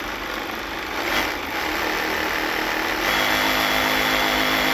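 Chainsaw running and cutting at a steady pitch, a little louder about three seconds in.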